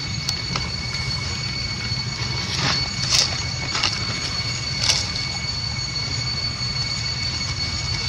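Steady outdoor ambience: a low rumble under steady high-pitched whining tones at two or three pitches, with a few faint clicks or rustles in the middle.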